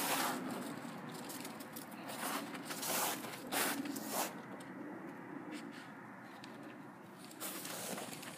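Footsteps crunching and scraping through snow and dead leaves, a handful of sharp irregular crunches in the first half, then quieter with one more near the end.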